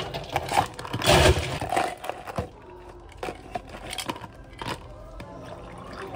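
Ice cubes scooped and dropped into two plastic cups: a loud rattling clatter about a second in, then scattered clicks and knocks of ice and cups.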